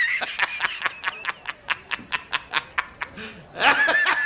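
A man laughing hard and uncontrollably. A high-pitched shriek gives way to rapid, even bursts of 'ha', about five a second, and a second high wail comes near the end.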